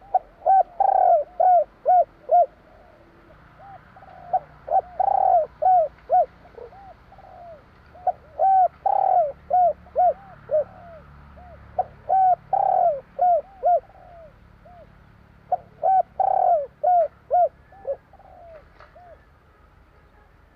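Spotted dove (tekukur) cooing: five phrases about four seconds apart, each a run of short, rapid, arching coo notes.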